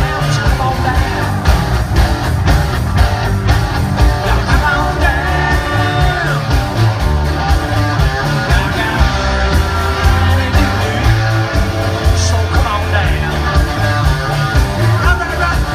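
Live rock band playing loudly: electric guitars and a steady beat, with a lead singer singing over them.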